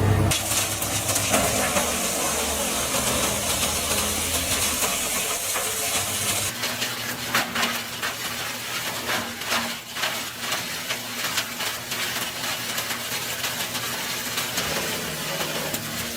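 Wood chipper shredding branches. A steady hiss of wood being chewed and thrown out runs for the first several seconds, then turns into a run of sharp crackles and cracks, with the engine only faint underneath.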